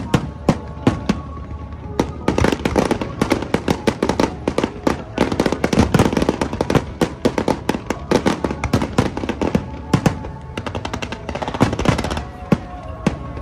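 Fireworks display: a dense run of bangs and crackling from aerial shells bursting, thickest in the middle and thinning out near the end.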